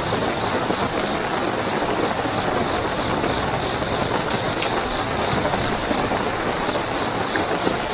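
Steady heavy rain, a dense even hiss, with crickets chirping as a continuous high trill underneath.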